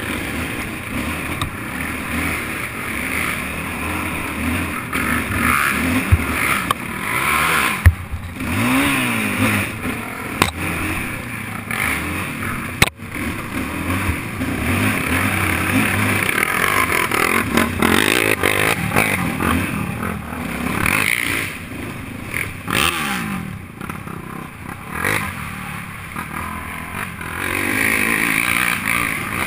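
Racing quad ATV engine revving up and down through the gears, the pitch rising and falling over and over, with scraping and clattering and a few sharp knocks along the way.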